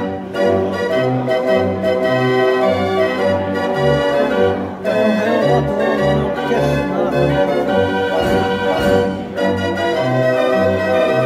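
Dutch street organ playing a tune: sustained pipe melody and chords over a bass that steps between notes in a steady rhythm.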